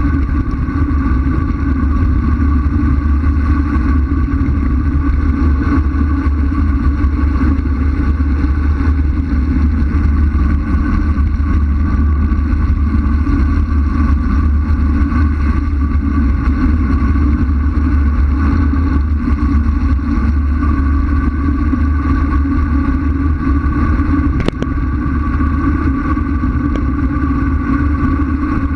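Wind rushing over the microphone of a camera on a bicycle speeding downhill: steady, loud, deep buffeting. A single sharp click about 24 seconds in.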